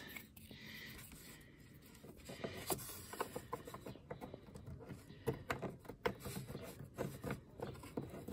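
Small clicks and scrapes of fingers working a clear plastic number-plate light lens into its housing. It is quiet at first, then a quick string of light taps and clicks from about two and a half seconds in.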